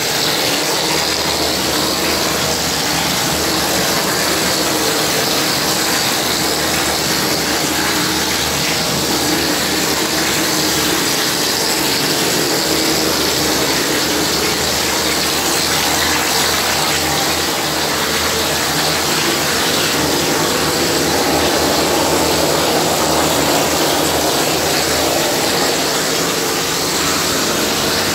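Plastering machine's spray lance hissing steadily as compressed air blows wet gypsum plaster onto a wall, with the machine's pump running under it.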